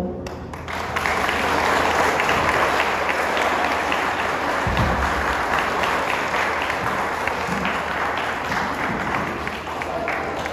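A crowd of people applauding, many hands clapping together; it starts about half a second in and carries on steadily.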